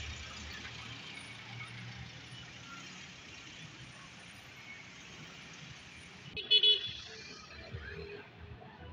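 City street traffic: cars and other vehicles passing with a steady hiss of engines and tyres, and a short, loud horn toot about six and a half seconds in.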